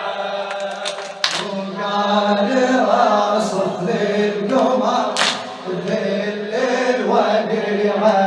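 Men's voices chanting a Shia mourning lament (latmiya) in Arabic, a held melodic chant of the lament's refrain with a choir-like, massed sound.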